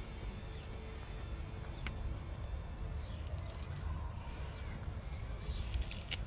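Outdoor rural ambience: a steady low rumble with a few short, high bird chirps and a couple of sharp clicks near the end.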